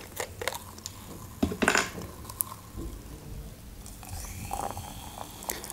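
A plastic bottle of Coca-Cola being opened, with a short hiss of escaping gas about one and a half seconds in. From about four seconds in, the cola is poured into a glass and fizzes.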